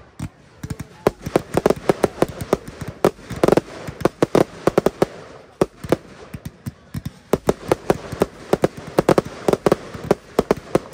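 Aerial fireworks shells launching and bursting in rapid succession: a dense, uneven run of sharp bangs and pops, several a second.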